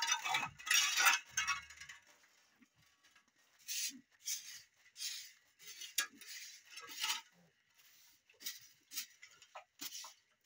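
Large White boar pig snuffling and rooting at a concrete floor: a short scuffling stretch at the start, then short noisy sniffs in a loose rhythm, about one or two a second.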